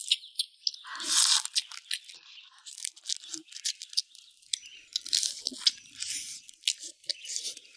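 Crab shells being bitten, cracked and torn apart while eating braised spicy swimming crab: many short sharp cracks and crunches.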